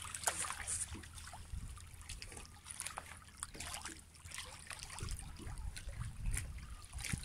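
Faint water trickling among rocks on the shore, with scattered small clicks and rustles close by and a low rumble underneath.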